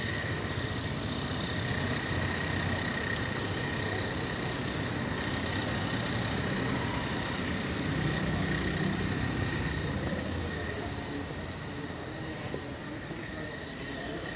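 Steady rumble of road traffic, with a thin, high, steady tone running over it.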